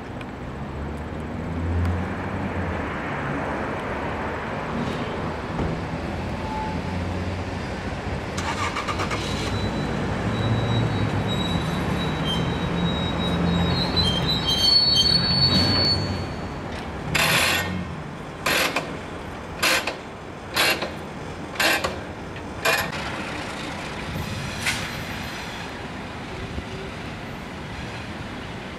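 A diesel engine running low and steady, with a thin, high squeal in the middle, then six short, sharp noises about a second apart.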